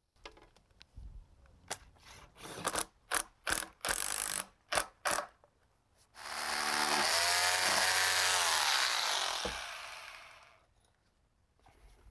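Power drill fastening a pressure-treated wood sill to a concrete foundation with masonry screws. First comes a series of short bursts, then one steady run of about four seconds whose pitch falls as the motor takes the load.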